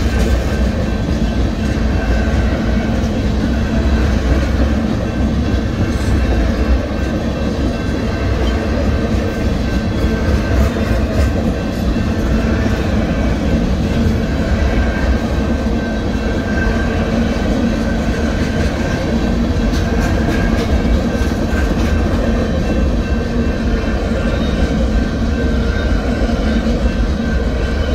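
Norfolk Southern freight train's tank cars and boxcars rolling steadily past, a continuous rumble of steel wheels on rail with some clickety-clack over the rail joints.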